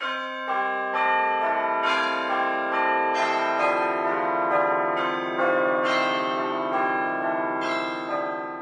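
Intro music of bell-like chimes: about nine notes struck one after another, each ringing on so they build into a sustained chord that fades away near the end.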